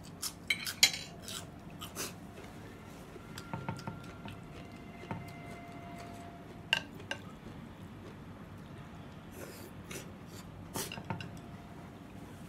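Eating at the table: wooden chopsticks and a soup spoon clinking against a ceramic noodle bowl, a few sharp clicks, the loudest within the first second and more about seven and eleven seconds in.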